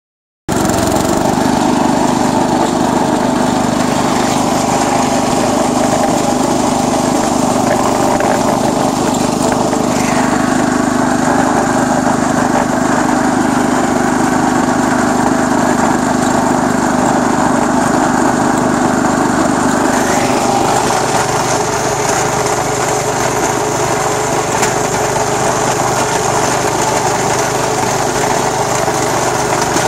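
Wheel Horse 856 garden tractor's 8 hp Kohler single-cylinder engine running steadily under load as the tractor pushes snow with its front blade.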